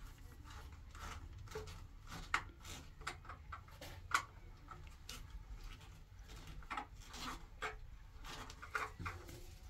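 Scattered light clicks and small scrapes of hands working a plastic wall light fitting, with two slightly louder clicks about two and four seconds in.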